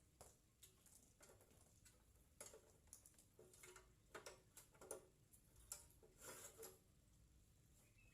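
Faint, irregular clicks and light knocks of parts and tools being handled while a cut-off machine is worked on. About a dozen scattered over several seconds, clustered in the middle.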